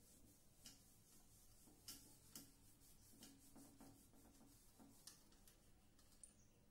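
Faint rubbing and a few light taps of an eraser wiping marker writing off a whiteboard.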